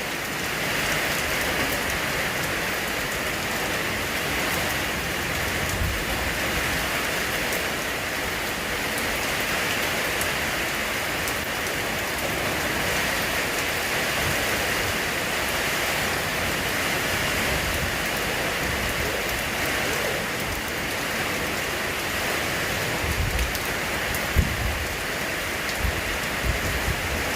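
Steady rain falling, an even unbroken hiss, with a few short low thuds near the end.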